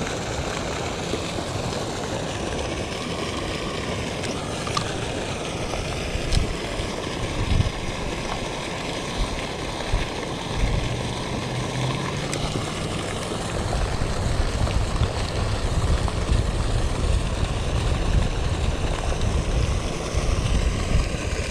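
Wind rumbling on the microphone over a steady splashing rush of water from a pond's spray fountain. The rumble gusts harder from about halfway through.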